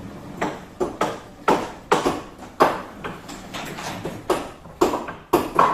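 A series of sharp, irregular knocks, about two a second, each dying away quickly.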